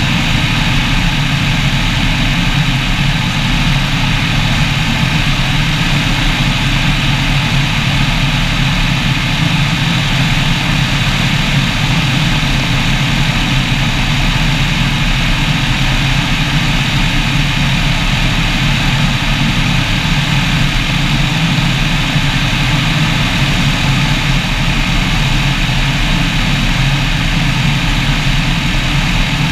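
Engine and rear pusher propeller of a weight-shift ultralight trike running steadily in cruise flight, a constant drone mixed with wind rush over a camera out in the airflow.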